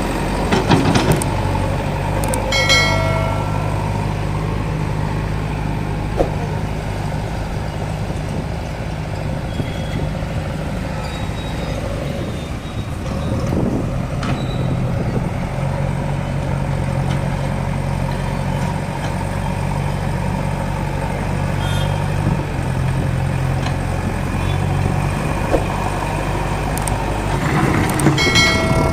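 Diesel engine of a JCB 3DX backhoe loader running steadily under working load, its note shifting as the load changes. A brief high-pitched tone sounds about three seconds in and again near the end.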